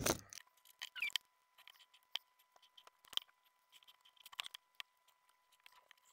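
Scattered light clicks and scratches of a pen drawing lines on paper and a plastic puzzle cube being set down and moved about on the sheet.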